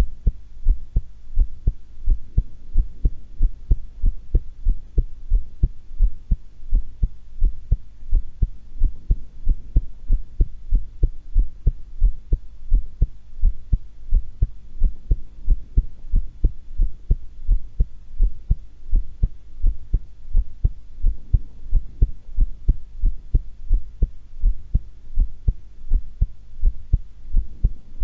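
A woman's heartbeat recorded close at the chest: a steady run of low lub-dub double beats at a calm resting pace.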